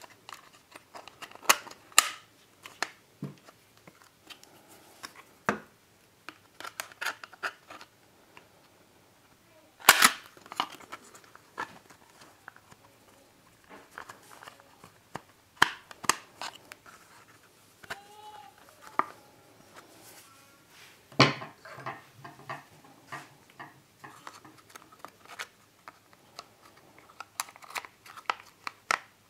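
Steel coil spring and plastic chain brake parts of a Husqvarna 55 chainsaw's chain guard being handled and fitted: scattered small clicks and rattles, with two loud sharp clicks about ten seconds in and about twenty-one seconds in.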